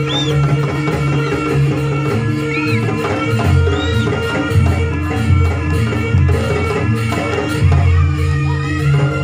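Loud ensemble music with drums and melodic instruments over a steady sustained drone, accompanying a Javanese kucingan (cat-costume) dance. Heavy low drum beats come in about three and a half seconds in and recur near the end.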